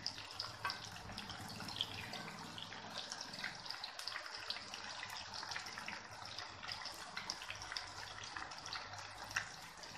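Gram-flour-battered, bone-in chicken pakoda pieces deep-frying in oil, the oil sizzling steadily with many small crackles.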